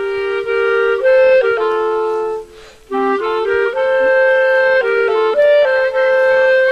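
Instrumental folk-style music: a woodwind melody in two voices moving together in short stepped notes. It breaks off briefly about two and a half seconds in, then carries on.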